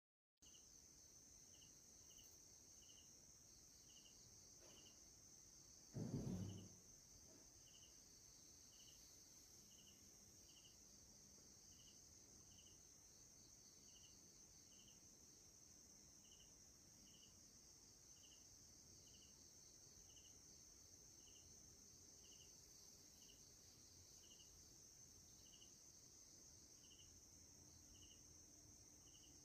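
Near silence: faint insects chirping about once a second over a steady high hiss, with a single low thump about six seconds in.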